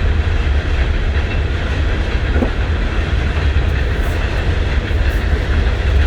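Train rolling past: a loud, steady rumble of railcars on the track.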